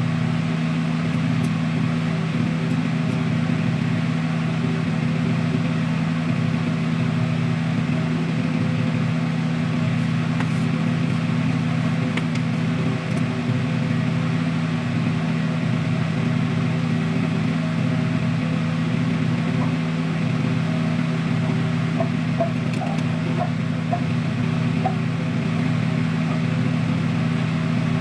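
Steady low machine hum that stays unchanged throughout.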